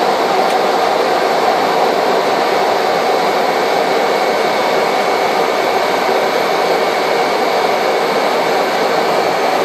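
Cockpit noise of a Cessna Caravan's Pratt & Whitney PT6A turboprop engine and propeller on the landing approach: a loud, steady drone with a faint, steady high whine.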